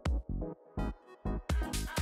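Electronic dance music with a fast, steady kick-drum beat. It thins out for about a second in the middle, then comes back fuller with bright cymbals.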